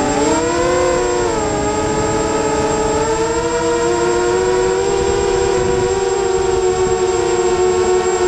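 FPV quadcopter's electric motors whining as it flies, heard from its onboard camera. The pitch rises and falls with the throttle in the first second or so, then holds nearly steady, creeping slightly higher.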